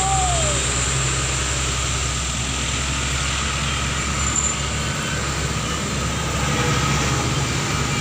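Heavy diesel engine of a tour bus running steadily under load on a hill climb: a low, even drone with road noise.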